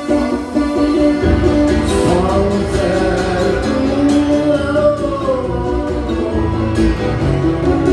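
Live song: a voice singing long held notes that bend slowly in pitch over guitar accompaniment. A heavier low accompaniment comes in about a second in.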